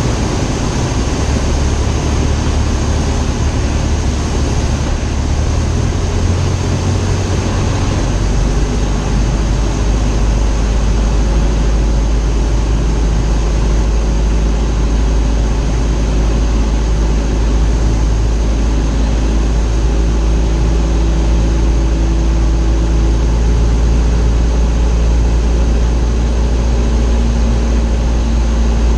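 Light aircraft's piston engine and propeller running steadily, a loud low drone; the engine note drops to a lower hum about eight seconds in, as power is reduced for the landing.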